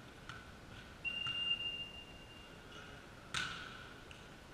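A referee's whistle gives one steady, high blast of about a second and a half. About two seconds later a volleyball is struck hard by hand for a serve: a single sharp smack that echoes around the sports hall.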